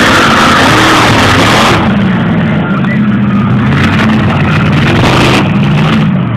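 Monster truck engine revving hard, its pitch rising and falling repeatedly, with a harsher, noisier surge in the first two seconds and again near the end.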